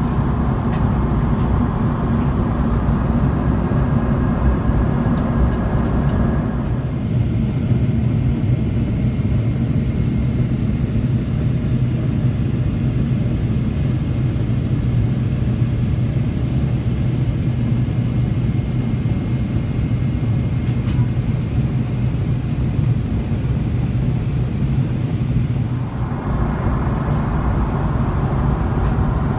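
Steady cabin noise of a Boeing 777-300ER with GE90-115B engines in flight: a continuous low rumble of airflow and engines. The airy hiss on top softens for most of the middle and comes back near the end.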